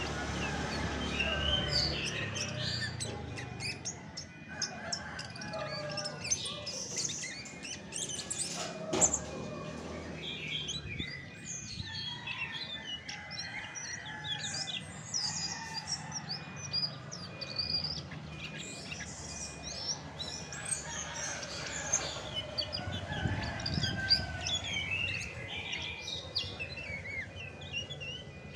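Chestnut-backed thrush singing: a long, busy run of quick, varied chirps and short whistles with hardly a pause.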